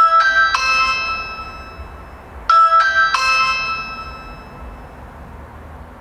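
Ring Video Doorbell 2 sounding its ring chime after the button is pressed: a short three-note electronic chime, played twice about two and a half seconds apart, the notes ringing on and fading away.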